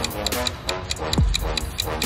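Background electronic music with a steady beat: quick regular ticks, held synth chords, and a deep kick drum that drops in pitch about a second in.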